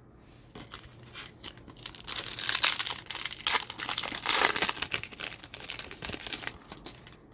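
A foil trading-card pack wrapper being crinkled and torn open, with dense crackling that builds about two seconds in and fades out around five seconds.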